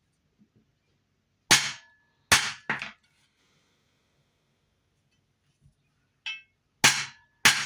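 Hammer blows on a steel stamping tool, stamping a design into a silver buckle. There are five sharp metallic strikes: one, then two close together, then after a long pause two more near the end, each with a brief ring.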